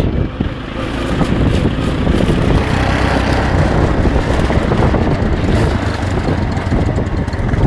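ATV engine running steadily at a loud, even level.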